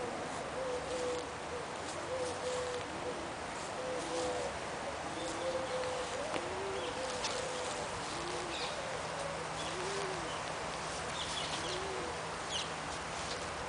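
A dove cooing over and over, a low rising-and-falling coo repeated about once a second, with small birds giving short high chirps above it.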